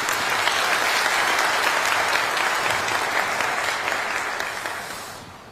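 Audience applauding, loud at first and then dying away near the end.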